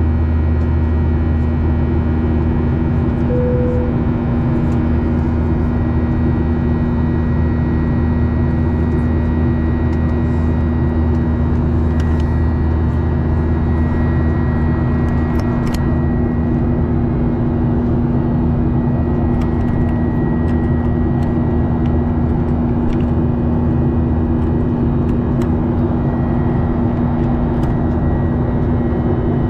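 Steady cabin noise of a Boeing 737-800 heard from a window seat: the even rush and drone of its CFM56 turbofan engines and airflow, with a constant hum, unchanging throughout. A short tone sounds once, about three and a half seconds in.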